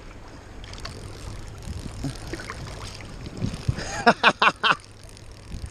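Wind on the microphone and water moving around the wading angler, a steady low rumble and hiss. About four seconds in, a quick run of four short bursts of a person's voice.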